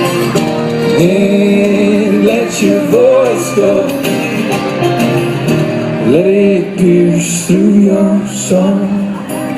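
Live acoustic folk band playing, with long, gliding sung or bowed melody lines over plucked strings.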